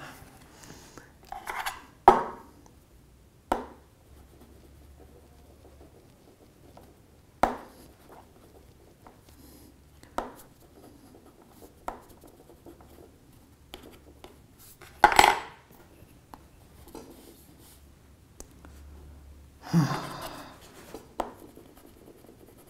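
An ordinary metal key tapping and scraping on the glass back of a Huawei Nova 3i: a few sharp clicks several seconds apart, the loudest about fifteen seconds in, and a longer scrape about twenty seconds in. The key leaves no mark on the glass.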